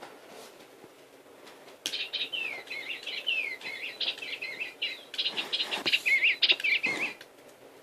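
A small songbird singing a long, rapid warbling song of quick up-and-down notes, starting about two seconds in and stopping shortly before the end.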